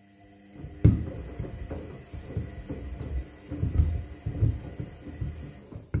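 Front-loading washing machine drum turning during the wash cycle with a load of shoes: the motor hums, then shoes thump and water sloshes as the drum tumbles for about five seconds before it stops.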